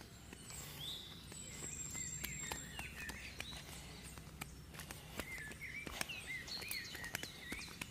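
Footsteps on a rough paved road, heard as irregular light clicks, with birds chirping in short rising and falling calls in the background.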